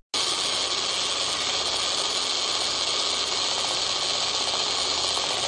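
Handheld power drill running steadily, spinning an attachment that strikes a phone's touchscreen over and over: an even mechanical whirr that starts abruptly just after the beginning.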